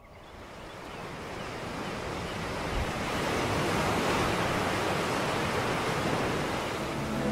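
Sea waves washing onto the shore, a steady rushing that fades in over the first three seconds or so and then holds.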